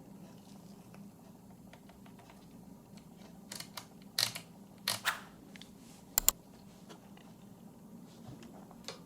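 Canon 5D Mark III DSLR being worked through tests: a few short clicks and clacks of buttons and handling about three and a half to five seconds in, then a sharp quick double click of the shutter about six seconds in, over a faint steady hum.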